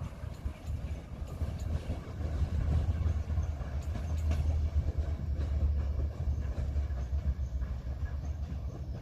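Passenger train rolling out of the station: a steady low rumble with scattered light clicks from the wheels.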